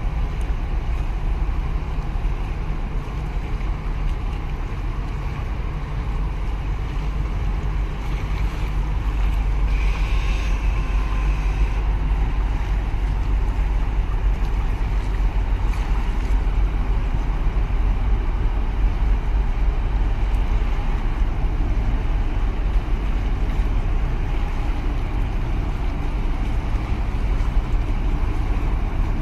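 Large container ship passing close by: a steady low rumble that grows slightly louder partway through.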